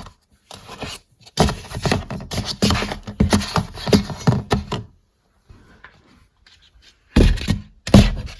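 Rustling and scraping of small decorative pumpkins being handled and packed into a storage container, in two stretches with a quiet pause between them.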